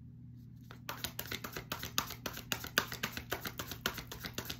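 A tarot deck being shuffled by hand: a quick run of soft card clicks, several a second, starting about a second in, over a faint low hum.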